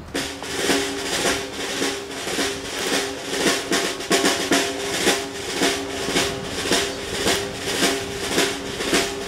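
Fire-brigade band's drums playing a marching beat: a snare drum roll over regular drumbeats, a little under two a second, with a steady held tone underneath.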